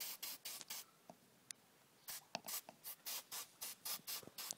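Aerosol can of blue disinfectant spray squirted in quick short hissing bursts, disinfecting a wound on a Nile crocodile's hide, with a pause of about a second after the first few squirts.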